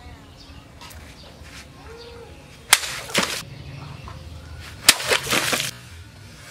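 A homemade sword forged from a motorcycle disc brake rotor slices through water-filled plastic bottles. There are two sharp cracks about two seconds apart, each followed by a brief splash of water.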